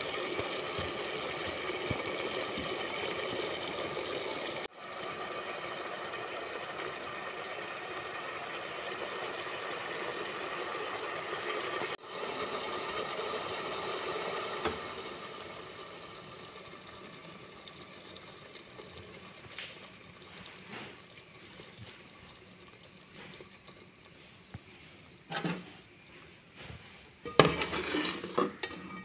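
Pork and vegetable stew boiling hard in a metal pot, a steady bubbling hiss that fades after about fifteen seconds. Near the end come a few short knocks, like a ladle against the pot.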